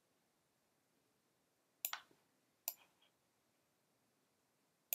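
Computer mouse clicking over near silence: a quick pair of clicks about two seconds in, a single click a moment later, and another at the very end.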